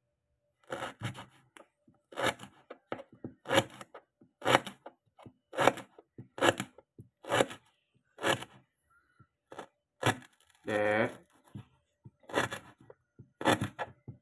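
Knife slicing a lemongrass stalk into small pieces on a plastic cutting board: a crisp, crunching cut about once a second. A brief voice-like sound comes about eleven seconds in.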